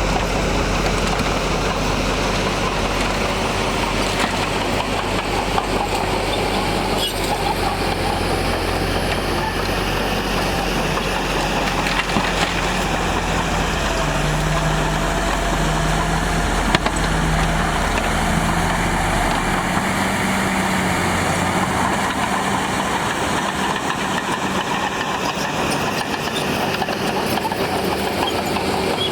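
Diesel engines of heavy earthmoving machinery running steadily; the deep low rumble falls away about two-thirds of the way through.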